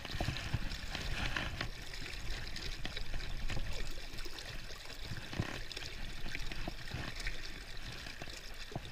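Strong river current rushing and swirling around a wader's legs, a steady flowing-water noise with a few small knocks.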